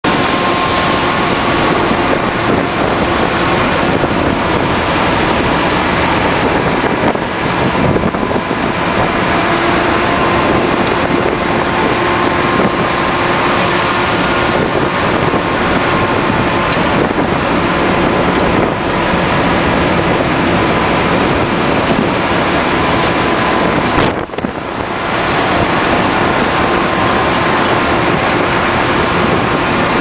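Gale-force wind blasting across a cargo ship's open deck and buffeting the microphone, over the rush of heavy seas breaking along the hull in a storm. Faint steady whistling tones run through the wind, which briefly drops away about three-quarters of the way through.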